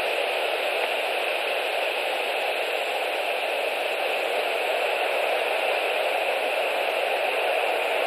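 Steady, even hiss with no calls or distinct sounds.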